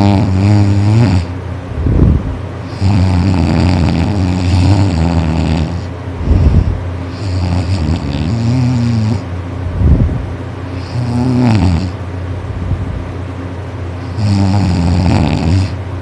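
A person snoring loudly. Drawn-out, wavering pitched snores alternate with short, sharp bursts of breath, about one breath cycle every four seconds.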